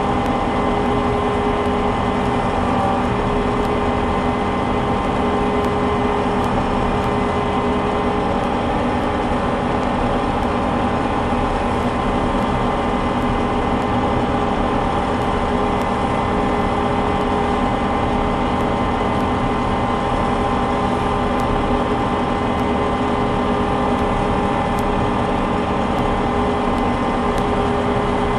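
Small combine harvester running steadily while cutting soybeans: an even mechanical drone with several constant whining tones over it, unchanged throughout.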